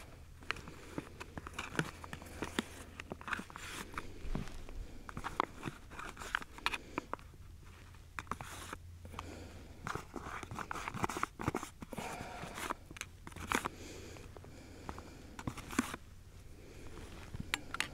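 Foil tuna pouch crinkling as a metal fork scrapes tuna out of it into a cook pot: a run of irregular clicks, scrapes and rustles.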